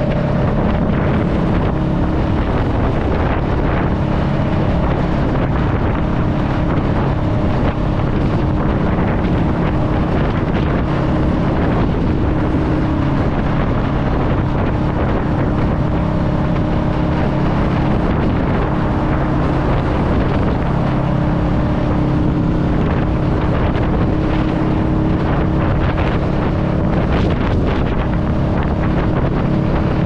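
2021 Honda Rebel 500's parallel-twin engine running through a TBR Comp S exhaust, holding a steady note while cruising, with wind rushing over the microphone.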